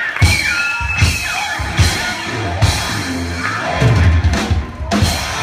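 Live rock band jamming: electric guitar over a drum kit, with heavy drum hits about once a second.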